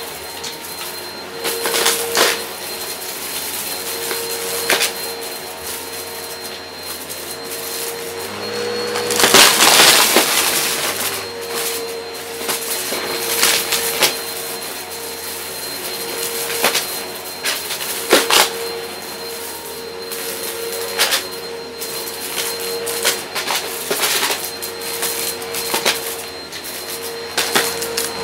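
Shark upright vacuum running with a steady motor hum while its brushroll sucks up small pieces of cardboard from carpet, the debris rattling and crunching through the head in scattered clicks. There is a louder burst of crunching about nine to eleven seconds in.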